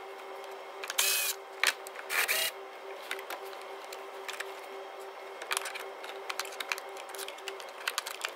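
Cordless battery ratchet running in two short bursts, about a second and two seconds in, undoing the 10 mm bolts of the timing belt cover, followed by light clicks and rattles of bolts and tools. A steady low hum runs underneath.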